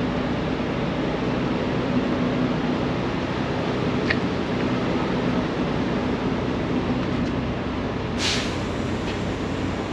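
Steady drone of an idling truck engine, with a short hiss about eight seconds in.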